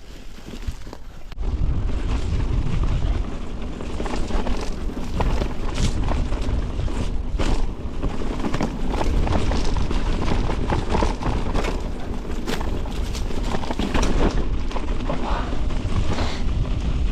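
Mountain bike ride on rough trail heard through an action camera: heavy low wind buffeting on the microphone with a clatter of tyre and frame knocks, rising suddenly about a second and a half in.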